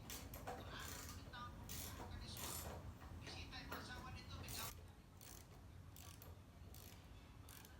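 Metal clicks, rattles and short scrapes of hand tools and parts being handled while a lawn mower is taken apart, thinning out after about five seconds, over a steady low hum.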